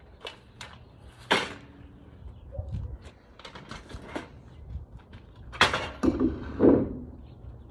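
Knocks and clatter of furniture and a hand truck being handled at the back of a moving truck. There is a sharp bang a little over a second in, a run of lighter knocks in the middle, and a louder, longer clattering bang about six seconds in.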